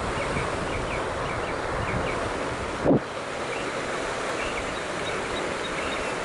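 Steady wind rushing over the camera microphone on open water, with a few faint high chirps and a brief thump about three seconds in.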